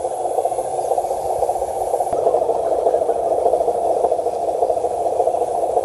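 Radio-controlled dump truck's electric drive motor and gearbox whirring steadily as the truck drives through grass, getting a little louder about two seconds in.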